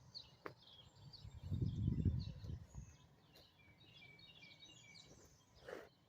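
Small birds chirping and twittering, with a brief low rumble swelling and fading about a second and a half in.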